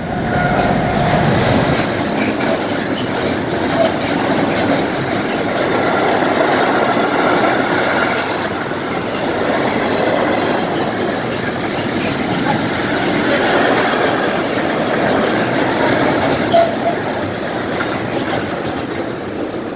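Freight train passing close by: an electric locomotive goes by, then a long run of tank wagons and covered wagons, with a loud steady noise of wheels rolling on the rails that swells and eases as the wagons pass, and a couple of sharp clacks along the way.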